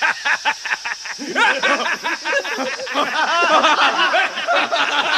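Anime voice acting: a man laughing loudly in rapid, repeated 'ha-ha' bursts. From about a second and a half in, the laughter grows denser, as if other men join in.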